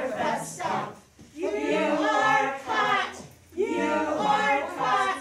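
A group of voices singing a song together in phrases, with short pauses between them.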